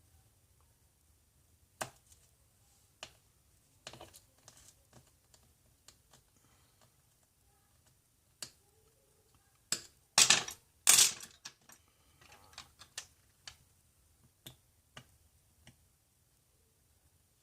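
Scattered sharp clicks of small metal repair tools against an iPhone 7's internal parts as a small bracket is taken out, with a louder burst of clatter about ten seconds in.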